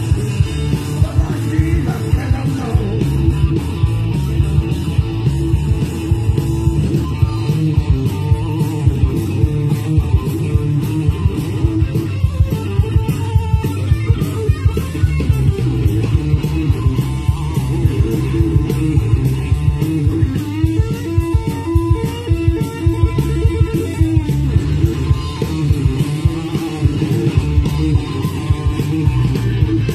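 Live rock 'n' roll band playing loud: electric guitars, bass guitar and drum kit with a steady beat.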